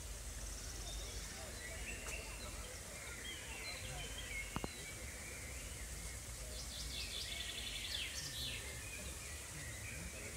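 Glasshouse ambience: a steady low rumble with scattered high chirps and faint distant voices. One sharp click comes about halfway through.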